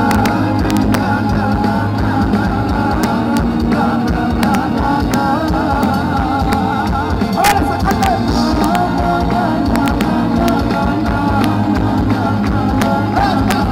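Andalusian rock band playing live through a PA, with drums, electric guitars and keyboards under a singing voice, heard from within the crowd.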